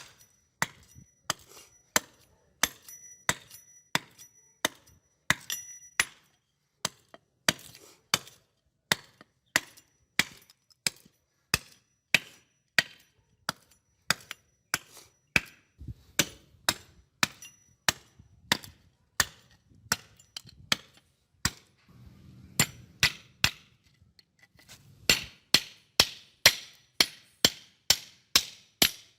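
Repeated sharp striking blows, about two a second, with a thin metallic ring after each in the first few seconds. The blows come quicker and heavier near the end.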